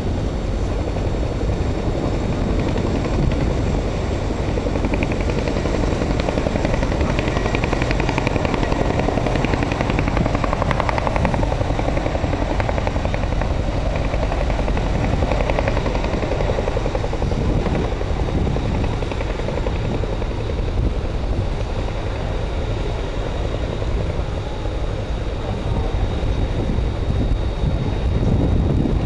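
Boeing CH-47 Chinook tandem-rotor helicopter's rotors and engines running, a steady, loud noise.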